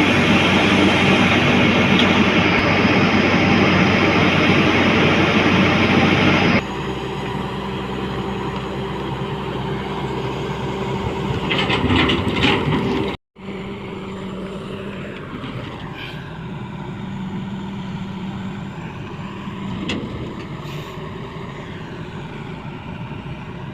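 Heavy diesel construction machinery engines running steadily. The sound is loud at first, drops abruptly about six seconds in, and cuts out for a moment about thirteen seconds in before the quieter engine sound resumes.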